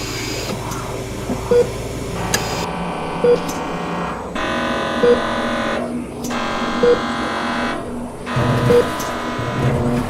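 A short electronic beep repeating about every second and three quarters, over a dense drone of layered steady tones that swells in the middle.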